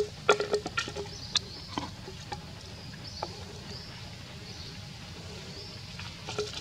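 Outdoor ambience: a short high chirp repeating about once a second over a steady low rumble, with several sharp clicks and taps in the first two seconds.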